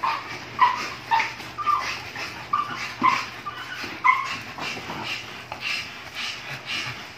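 A dog whimpering and yipping in short, high cries, about two a second.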